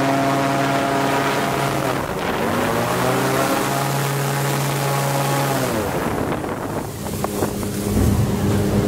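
Airboat's engine and propeller running at speed. The engine note dips about two seconds in, climbs again, then falls away about six seconds in and settles into a lower steady note near the end.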